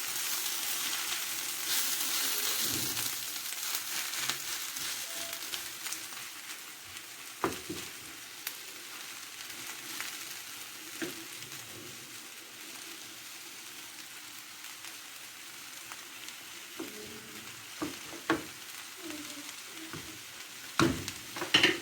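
Shrimp and fish frying in a pan with a steady sizzle, louder for the first several seconds and then easing off. A few light knocks against the pan are scattered through it.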